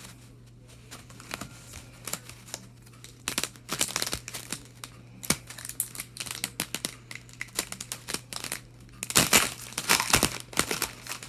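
Foil wrapper of a hockey card pack crinkling and tearing as it is opened by hand, with the cards being handled. The crinkling comes in two busier spells, about three to four seconds in and again around nine to ten seconds in.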